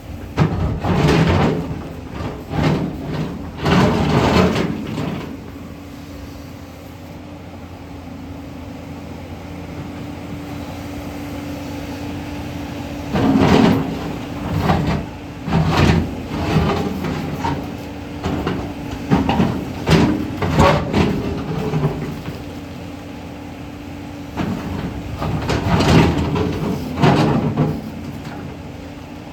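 JCB 245 HD long-reach excavator running steadily, with repeated loud clanks and scrapes of its bucket working against rock. The engine is heard alone for a stretch about six to twelve seconds in.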